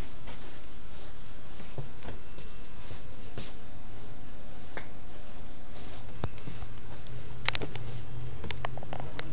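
Scattered light clicks and rustles over steady room noise as a comb and brush are worked through short hair, with a small cluster of clicks near the end.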